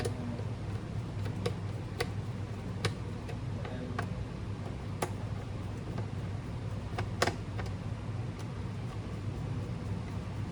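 Scattered light, sharp clicks, roughly one every second or two, with a double click about seven seconds in, over a steady low hum.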